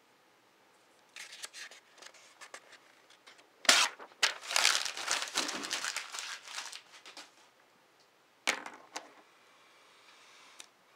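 Paper handling: a written sheet being torn off a legal pad and crumpled, with light rustling first, then a sharp rip about four seconds in and a few seconds of dense crinkling, and one more brief rustle near the end.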